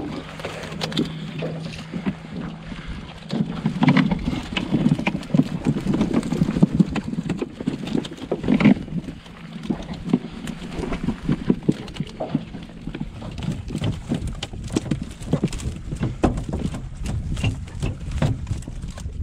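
Irregular knocking and clattering of a wire-frame catfish net and flopping catfish against an aluminum jon boat as the net is hauled aboard and shaken out, heaviest in two spells. A low steady hum stops a few seconds in.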